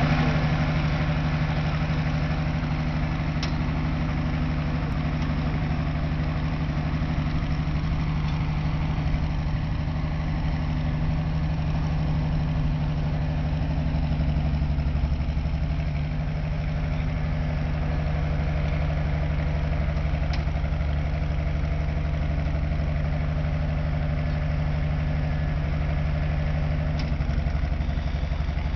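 A large engine idling, a steady low drone that holds the same pitch throughout.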